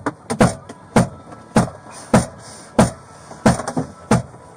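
Repeated heavy thuds, about one and a half a second, of a person banging her head against the inside of a police car.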